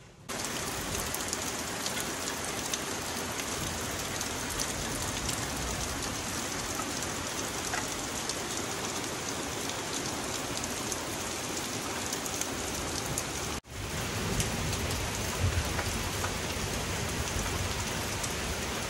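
Steady rain falling through the forest and onto the treehouse roof and deck. It drops out for a moment about two-thirds of the way through, then carries on.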